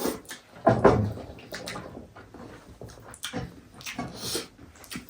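Eating sounds close to the microphone: goat soup being slurped and chewed in short, irregular bursts, the loudest a little under a second in.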